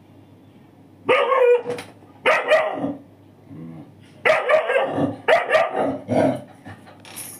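Dog barking repeatedly, in about five loud barks in two runs.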